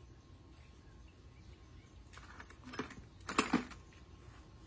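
Metal tools and chain clinking and rattling in a plastic toolbox as a capuchin monkey rummages through it: a short run of clicks about two seconds in, then a louder clatter about a second later.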